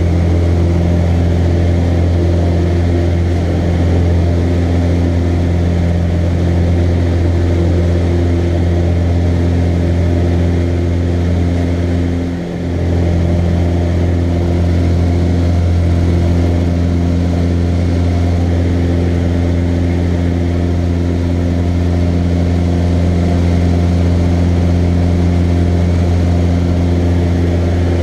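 Cessna 150L's four-cylinder Continental O-200 engine and propeller running steadily at climb power, heard from inside the cockpit, with a brief dip in level about halfway through.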